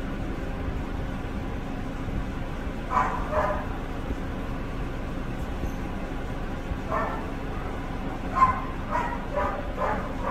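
A dog barking in short bursts: two barks about three seconds in, one about seven seconds in, then a quick run of four or five near the end, over a steady low hum.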